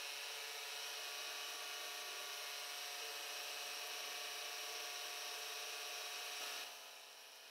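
Milling machine running a small end mill that is cutting the inside walls of a casting's pocket: a steady high whine and hiss of spindle and cut. Near the end it drops sharply to a quieter steady hum.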